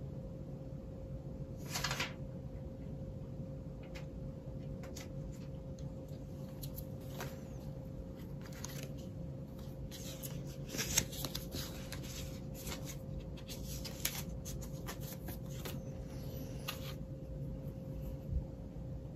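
Cardboard and paper packaging of a glass screen-protector kit being handled: scattered light rustles and small clicks, busier in the second half, over a steady hum.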